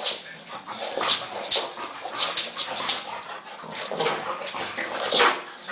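Eight-week-old French bulldog puppy yapping in play: a string of short, high-pitched yaps, about seven in all.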